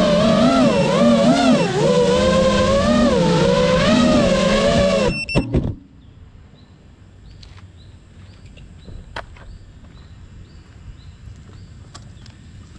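5-inch FPV quadcopter's brushless motors and propellers whining, the pitch rising and falling with throttle. The sound cuts off suddenly about five seconds in with a few knocks as the quad touches down. Faint chirps and clicks follow.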